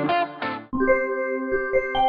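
Intro music: strummed guitar chords that break off about 0.7 s in, followed by a held, ringing chord.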